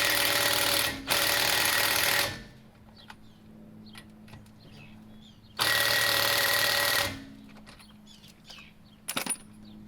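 Power impact wrench hammering on suspension bolts in three bursts of about a second each: two back to back, then a third about five seconds later. A short metallic clatter follows near the end.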